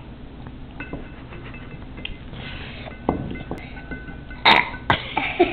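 A young child's burp, a sudden loud rasp about four and a half seconds in, after a stretch of faint clinks and knocks.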